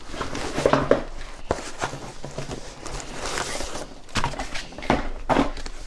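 Long cardboard boxes being pulled out of a fabric carrying bag and handled: a series of knocks and scrapes, with rustling in the middle.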